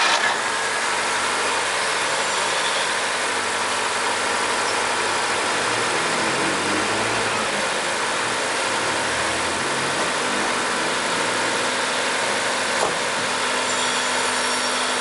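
Chevrolet Corsa 1.0 four-cylinder engine idling steadily just after a cold morning start, running smoothly with no tappet or piston knock.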